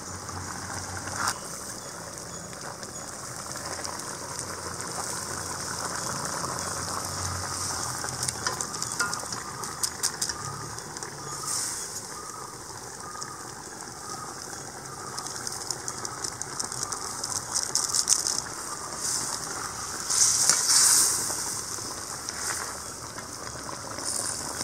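Mutton stock and vegetables simmering and sizzling in a steel pan over a gas burner, a steady hiss. A few louder crinkling rustles come from a paper spice sachet being handled, the loudest about three-quarters through.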